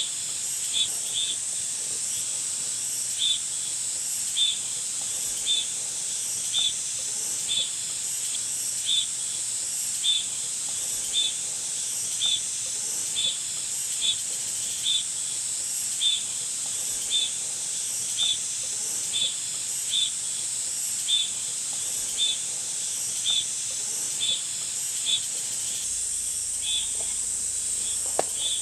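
Outdoor insect chorus: a steady high-pitched hiss, with a short high chirp repeating about once a second over it.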